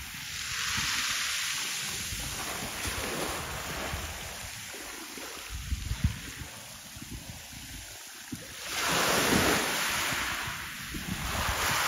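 Small sea waves washing against the shore under wind buffeting the microphone as a low rumble; the wash swells up loudest about three-quarters of the way through and again near the end.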